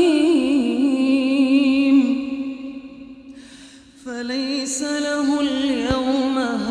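Melodic Quran recitation: a single voice chanting Arabic in long held notes of wavering pitch. It fades out for about a second near the middle, then resumes.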